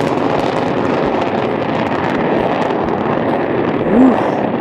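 Rocket launch sound effect: a loud, steady rushing noise of rocket engines firing at lift-off, with a short swooping tone about four seconds in.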